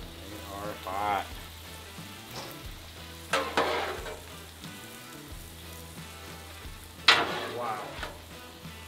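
Sauce-dipped tortillas sizzling on a hot Blackstone flat-top griddle, with two sudden louder flares of sizzle, about three seconds in and about seven seconds in, the second the loudest.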